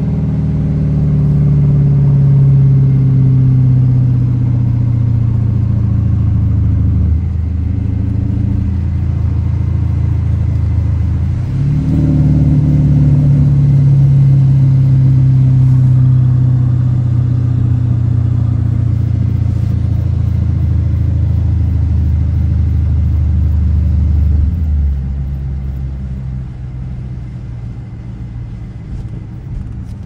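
Dodge Challenger R/T's 5.7-litre Hemi V8 heard from inside the car with the window rolled down, rumbling steadily under way. Its note steps up about twelve seconds in. Near the end the engine eases off and goes quieter.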